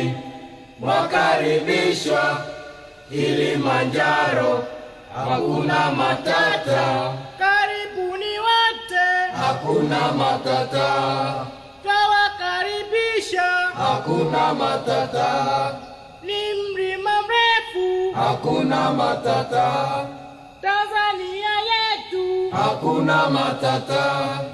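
A group of men singing unaccompanied in a chant-like style, in short phrases one to two seconds long with brief breaks between them.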